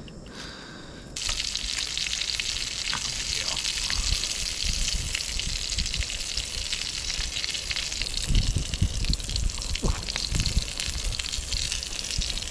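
Chicken, sausages and potatoes sizzling in a Ridge Monkey sandwich-toaster pan, a steady frying hiss that starts suddenly about a second in. Low thuds and rumbles come in the second half.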